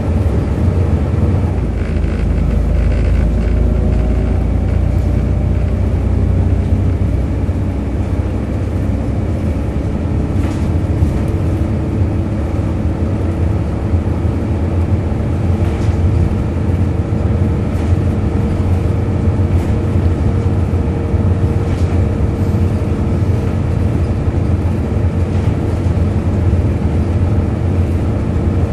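Volvo B7RLE bus's six-cylinder diesel engine and driveline running on the move, a steady low rumble with a groaning tone that slowly rises and falls.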